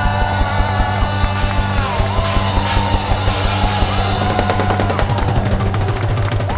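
Live rock band playing: a drum kit keeping a steady beat under sustained guitar and bass notes, with a sung line near the start.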